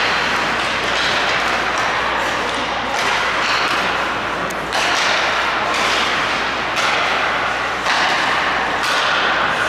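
Ice hockey play: skate blades scraping the ice and sticks and puck knocking, heard as a steady hiss broken by a sudden thud or scrape every second or so.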